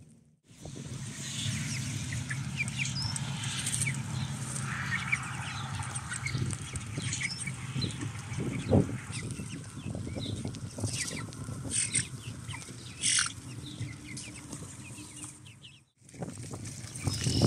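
A flock of young meat chickens (broilers about four weeks old) peeping and cheeping, in many short, high, scattered calls. There is a single thump about nine seconds in.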